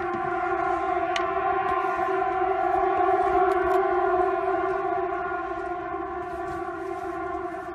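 A loud, steady drone like a deep horn with overtones, holding one pitch. It swells toward the middle and eases off slightly near the end. It is one of the unexplained 'strange sounds in the sky'.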